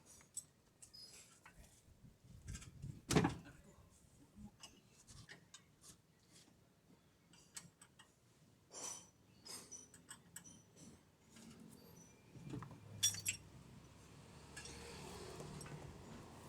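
Metal tools and parts clinking and tapping as they are handled, with one louder knock about three seconds in and a quick run of clicks near thirteen seconds. A steady noise comes up near the end.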